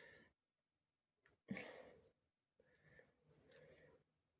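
Mostly near silence, with a soft breathy sigh about one and a half seconds in and faint, quiet sounds after it.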